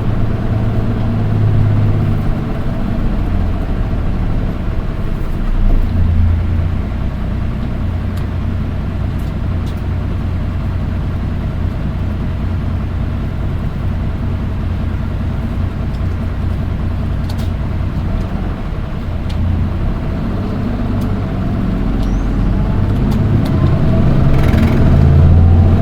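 Running sound inside a Nissan Diesel Space Runner RM820 route bus: steady diesel engine and road noise while it drives. The engine note and loudness rise over the last few seconds as the bus picks up speed.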